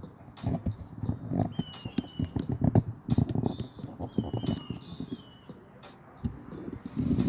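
Irregular knocks and clanks of hand tools working on an ice maker's metal housing as it is taken apart for scrap. Short high chirps come and go every second or two.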